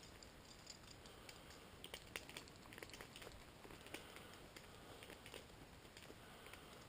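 Near silence: a faint steady hiss with scattered small clicks and ticks.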